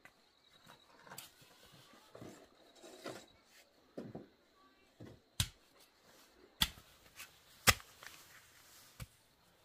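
A small hoe blade chopping and scraping into hard-packed dirt to dig a small hole: soft scraping and rustling at first, then three sharp strikes about a second apart, and a fainter fourth near the end.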